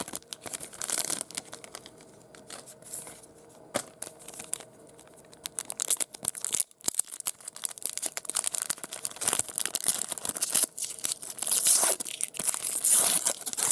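Trading card pack packaging being torn and crinkled open by hand: irregular rips and crackles, sparse at first and busier in the second half.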